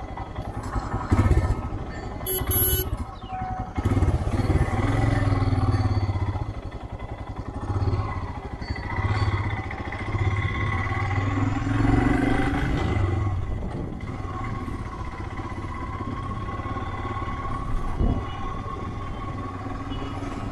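Motorcycle engine running while riding along a town road, its note rising and falling with the throttle. A brief shrill sound comes about two and a half seconds in.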